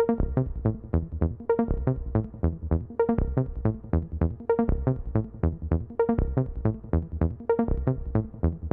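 Background electronic music with a steady beat of short plucked synth notes, about four a second, in a phrase that repeats every second and a half.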